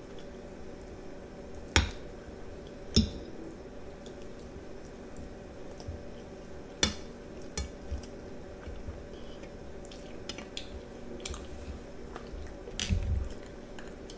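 A metal fork clinking and scraping on a plate of spaghetti, a few sharp taps spread apart, with soft slurping and chewing of noodles between them. Near the end a glass of ice water is picked up off the table with a short clatter.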